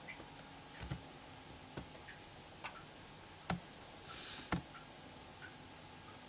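Computer keyboard and mouse clicks: five single sharp clicks, roughly one a second, as an address is typed into a web browser and selected.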